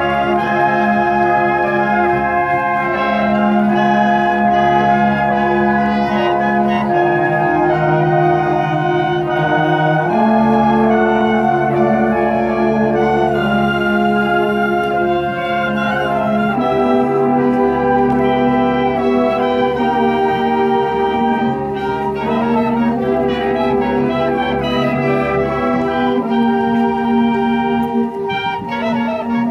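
A marching band plays a tune. Trumpets, mellophones, sousaphones and saxophones hold chords that change every few seconds. Snare drum hits come in near the end.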